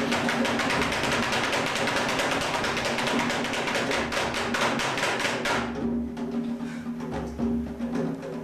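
Music with fast, even percussion strikes, about eight a second, over steady low tones; the strikes thin out and grow softer about six seconds in.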